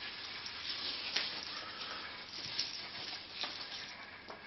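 Rustling and handling noise among potted begonia plants, with a few soft clicks over a steady hiss.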